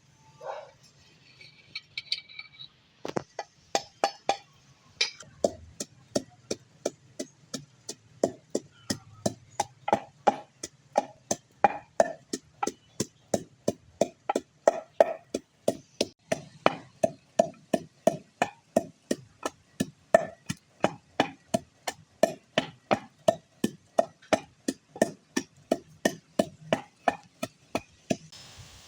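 A knife chopping food on a cutting board: a steady run of sharp strokes, about two to three a second, starting about three seconds in.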